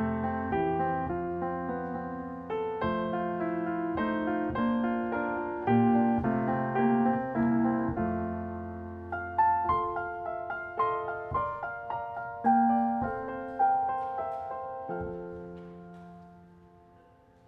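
Piano music, notes struck and left to ring, ending on a held chord that fades away near the end.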